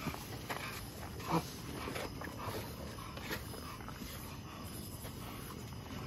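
Dog puppies giving a string of short cries in the first half, the loudest about a second in, then only a low steady background.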